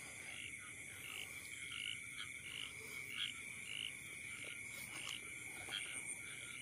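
Small field frogs calling: short croaks repeated a few times a second, over a steady high-pitched trill.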